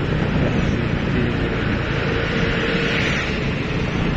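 Steady rumble of wind and engine from a motorcycle being ridden over a rough, broken road.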